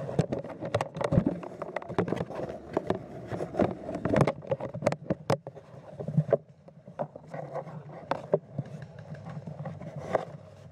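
Irregular clicks, knocks and rustle of footsteps and jostling gear picked up close by a body-worn camera as a paintball player walks, over a low steady hum.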